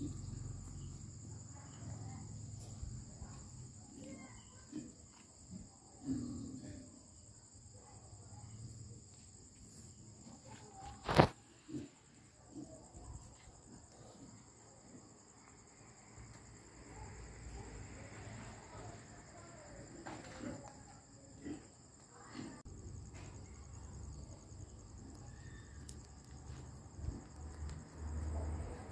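Crickets chirring steadily in two high-pitched bands, with one sharp click about eleven seconds in and some low rumbling.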